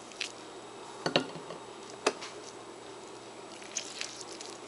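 Lime being squeezed by hand over fish in a pot: a few short, wet squelches and clicks spaced out over several seconds.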